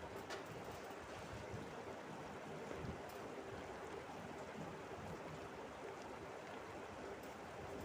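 Masala paste sizzling steadily in hot oil in a cooking pan as its water cooks off.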